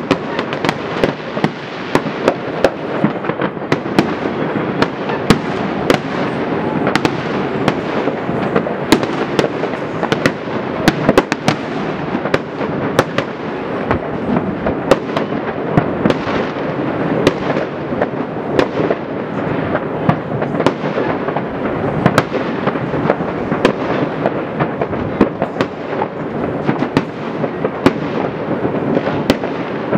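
Many fireworks going off at once, near and far: a continuous rumbling din of bursts with frequent sharp cracks and bangs on top.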